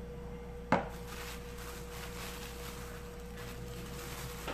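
Plastic bag of tapioca starch rustling faintly as a hand reaches in to scoop, with one sharp knock about three quarters of a second in. A faint steady hum runs underneath.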